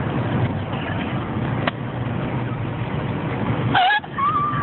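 Steady low rumble of a car running, with a single sharp click about a second and a half in and a brief high vocal sound near the end.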